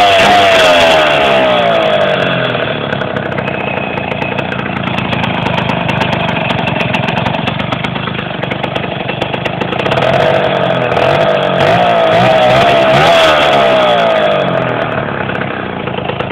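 Simson SR 50 scooter's single-cylinder two-stroke engine, bored out from 50 to 70 cc, running warm during running-in. Its pitch swings up and down with the throttle at the start and again about ten seconds in, with a steadier, slightly quieter run in between.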